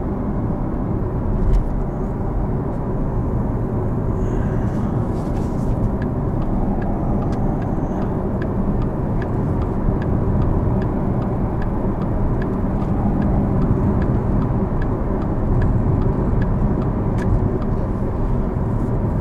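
Steady tyre and road noise inside the cabin of a Porsche Taycan Turbo S electric car driving on a wet road. From about six seconds in, a faint regular ticking joins, about two ticks a second.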